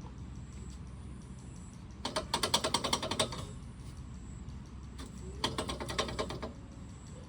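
Ratchet wrench clicking in two quick runs, one about two seconds in and another about five and a half seconds in, as a nut is tightened.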